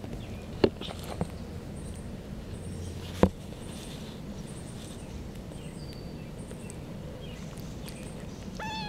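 A few sharp clicks, the loudest about three seconds in, over faint steady background noise with faint high chirps repeating about once a second. Near the end, a two-week-old kitten gives one short, slightly falling mew.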